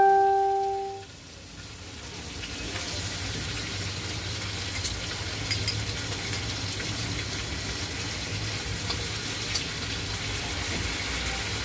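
Food frying in oil in an electric hot pot, a steady sizzle. At the very start a loud ringing tone with a clear pitch sounds for about a second and dies away.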